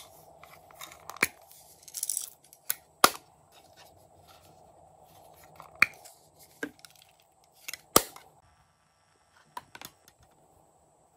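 Small plastic compact cases clicking open and shut, a handful of sharp snaps, with a brief rustle of sequins and confetti being tipped out of them.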